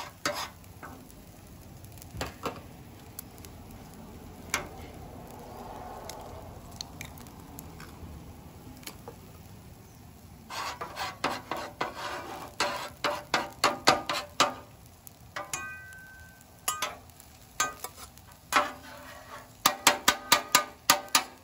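Eggs frying on a hot flat-top steel griddle with a soft sizzle. From about halfway, metal spatulas repeatedly click and scrape against the griddle, striking quickly near the end as the eggs are chopped up.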